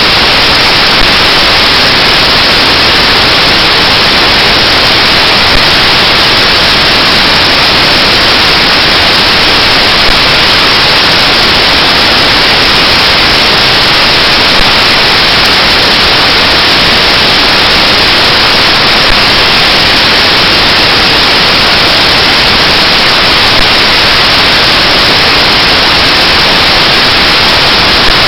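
Loud, steady static hiss with nothing else audible, and a faint tick about every four and a half seconds.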